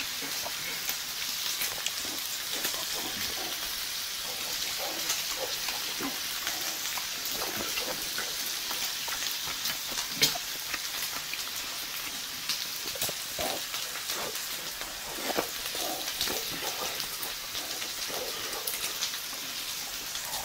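Slices of pork belly sizzling steadily on a grill tray, a continuous hiss full of small crackles. Close chewing and mouth sounds, with light clicks of chopsticks, come and go over it.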